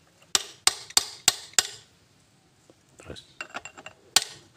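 Hammer tapping a steel drift against the differential's bearing adjuster nut, metal on metal: five sharp strikes about three a second, a few lighter ticks, then one more strike near the end. Each tap moves the crown wheel to set the backlash between pinion and crown wheel.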